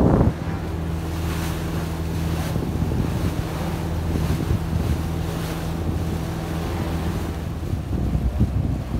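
Boat engine running with a steady low hum under wind buffeting the microphone and the wash of the sea. The engine hum drops out near the end, leaving wind and water noise.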